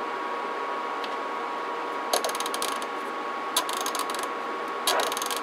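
CB radio's rotary channel selector being turned in three quick runs, each a rapid string of detent clicks, over a steady electronic hum.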